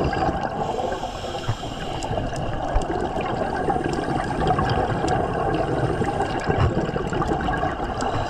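Scuba divers' exhaled bubbles from their regulators, a steady underwater bubbling and gurgling with a few short clicks.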